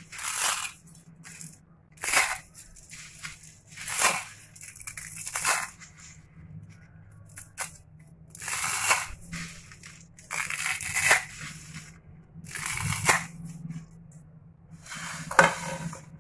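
Dry thin vermicelli pasta being crushed and snapped by hand into a pot of water: a crisp crunching and crackling that comes in repeated bursts every second or two.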